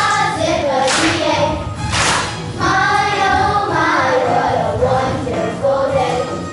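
A song with a group of voices singing over a backing track with drum hits and a steady bass.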